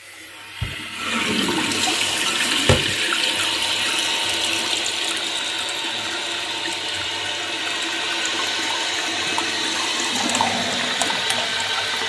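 Water rushing into an emptied toilet cistern through its fill valve once the supply stop valve is opened: the tank refilling after its flush-valve seal was replaced. A steady hiss that starts about a second in, with two knocks in the first three seconds.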